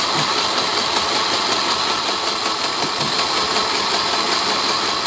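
Small electric mini sewing machine running steadily, stitching a hem along satin fabric, with a fast, even chatter of the motor and needle.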